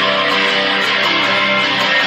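Guitar music: a guitar strummed steadily and loudly, with sustained chords.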